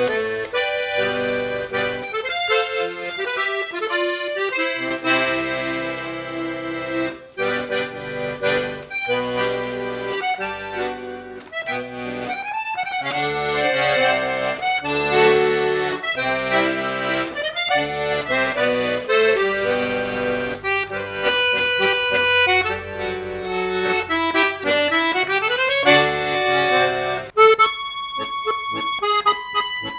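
Accordion playing a folk tune, with melody and chords over bass notes; near the end the playing thins to a few high held notes.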